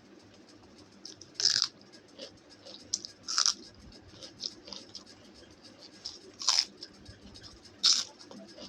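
Close-up chewing of crunchy food: soft mouth clicks and smacks throughout, with four louder crunches spaced a second or more apart.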